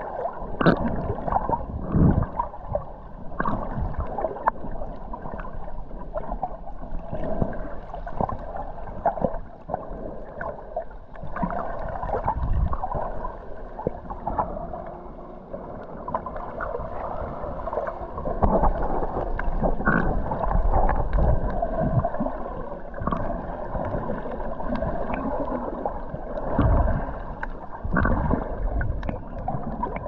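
Underwater sound of a snorkeler swimming: water rushing and gurgling around the camera, with irregular bubbling and knocks from swim strokes. Heard underwater, muffled, with little high sound.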